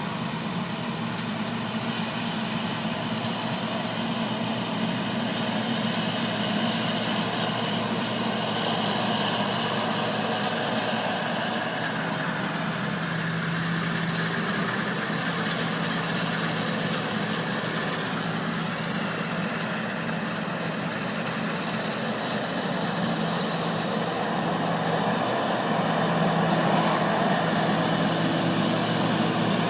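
Combine harvester running steadily while harvesting soybeans, a continuous engine drone that grows a little louder near the end.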